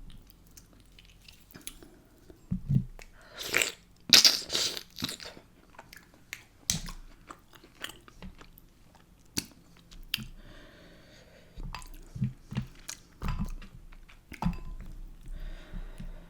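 A person chewing and biting food, with scattered sharp clicks and a few louder noisy bursts around four seconds in.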